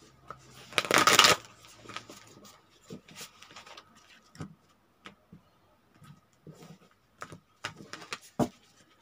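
Tarot cards being shuffled by hand: a loud rush of cards about a second in, then soft taps and slides as the deck is handled.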